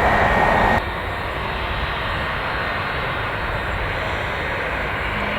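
Jet airliner engines running, loud with a high steady whine that cuts off abruptly just under a second in, followed by a steadier, quieter rush of engine noise.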